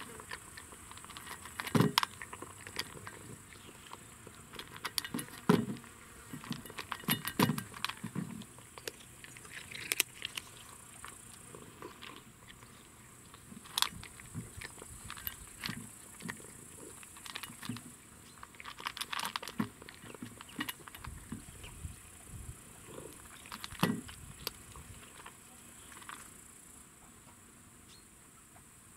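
Domestic cat crunching dry kibble from a metal bowl, in irregular bursts of crunches with short pauses between.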